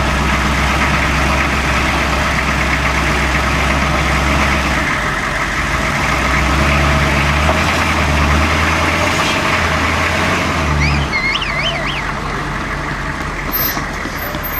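Hummer H1 engine running at low revs as the truck crawls over steep rock. A steady low drone drops away about eleven seconds in.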